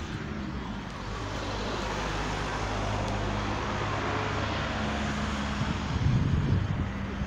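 Road traffic: a motor vehicle passing on a nearby street, its tyre and engine noise swelling over the first few seconds and holding, with a steady low engine hum. A few louder low bumps come near the end.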